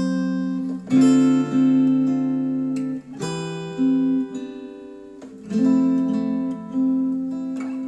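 Acoustic guitar music played back through Focal Chora 806 bookshelf speakers: strummed chords struck every couple of seconds, each left to ring and fade.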